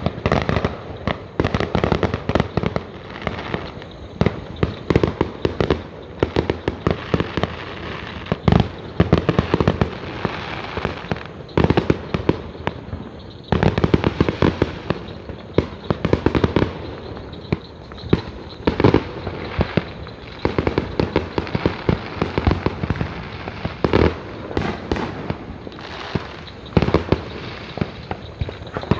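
Fireworks going off in a continuous barrage: many sharp bangs in quick succession over steady crackling.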